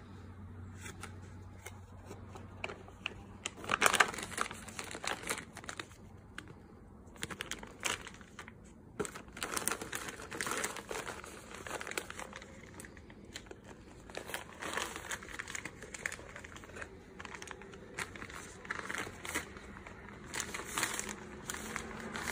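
Plastic dog-treat bags and box packaging crinkling and rustling as they are handled and nosed through, in irregular bursts, loudest about four seconds in.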